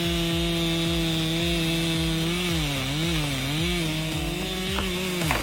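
Chainsaw running at high revs, its pitch dipping and recovering several times in the middle as the chain loads up in the wood, then stopping abruptly near the end.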